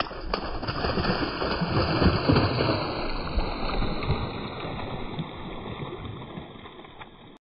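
Labrador dog running through shallow floodwater, its legs splashing continuously. The splashing is loudest about two seconds in, fades slowly, then cuts off suddenly near the end.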